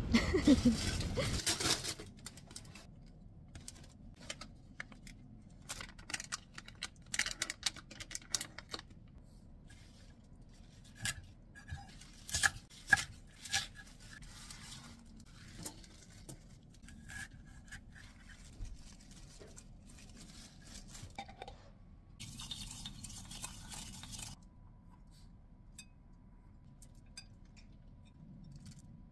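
Kitchen food preparation: a knife cutting kale on a wooden chopping board, with light scattered clicks, knocks and plastic rustling from salad-making, and a couple of seconds of rustling noise about two-thirds of the way through. It opens with about two seconds of outdoor traffic noise.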